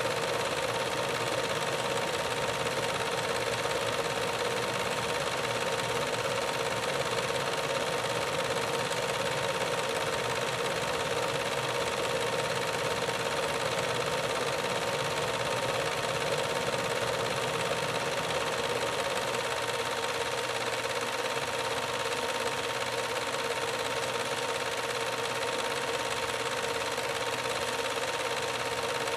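Home-movie film projector running: a steady mechanical whir and rapid clatter from the projector mechanism, with a constant high tone.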